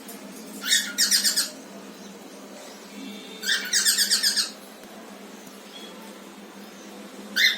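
Pet parrot calling in loud, harsh bursts of rapid chatter: two about a second long, then a short call near the end.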